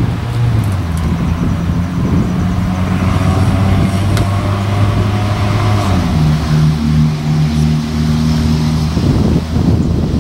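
An engine running steadily nearby. Its pitch rises about six seconds in and drops back near nine seconds.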